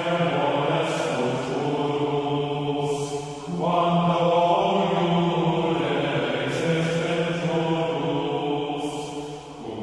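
Background music of chanting voices singing long, held notes over a steady low tone, the pitch shifting about a third of the way in and again past the middle.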